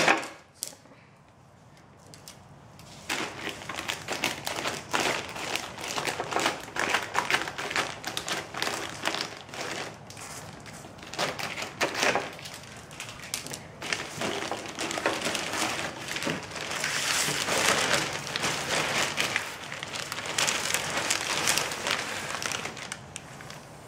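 Scissors snipping through clear plastic shrink wrap, the plastic crinkling and crackling as it is cut and pulled, with taps and knocks as the wrapped backboard is handled. It starts after a quiet couple of seconds, and the crinkling is densest about two-thirds of the way through.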